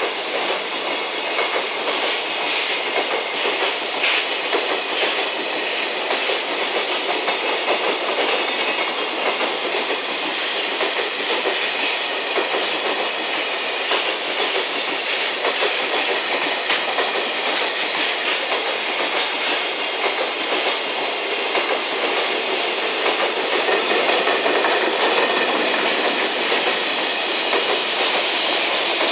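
Container freight wagons rolling past at speed, their wheels clattering steadily over the rail joints. Near the end the sound grows louder as the rear banking locomotive, an EF210-300 electric, comes up.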